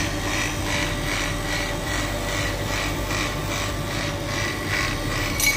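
Electric AC vacuum pump running steadily while evacuating the truck's air-conditioning system, a motor hum with a rasping pulse repeating a few times a second. A brief sharper clack near the end.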